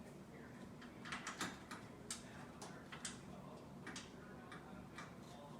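Ratcheting screwdriver clicking as it drives the screws of a microwave door handle. There is a quick run of clicks about a second in, then single clicks every half second or so.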